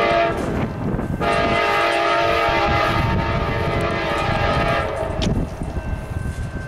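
Amtrak GE P42DC locomotive's air horn sounding as the train approaches: a short blast, then a long blast of about four seconds, over the low rumble of the train.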